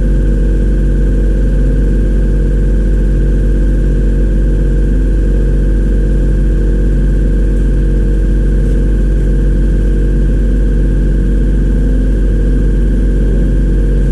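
A machine running steadily with a loud, even low hum that holds the same pitch throughout.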